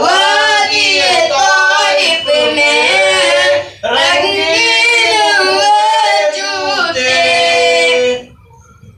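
A boy singing a naat into a microphone, unaccompanied, in two long drawn-out phrases with a wavering, ornamented melody; the voice stops shortly before the end.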